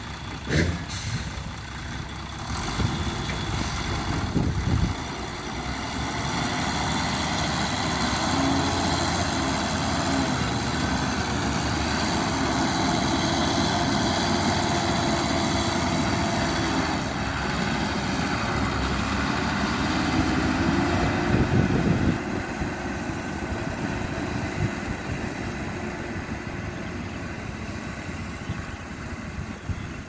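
Loaded tipper lorry's diesel engine running steadily and moving off. It grows louder through the middle and drops away after about twenty-two seconds, with a few knocks in the first five seconds.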